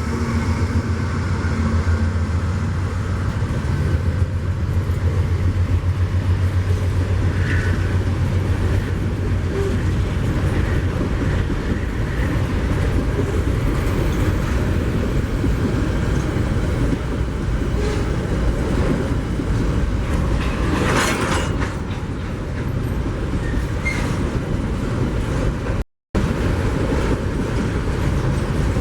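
Freight train passing, its wagons rolling over the rails in a steady rumble. A diesel locomotive's engine hum is heard at first and fades after about six seconds.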